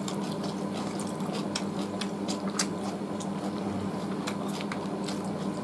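Eating by hand: fingers squishing rice and roast chicken and mouths chewing, heard as a string of small wet clicks and smacks over a steady low hum.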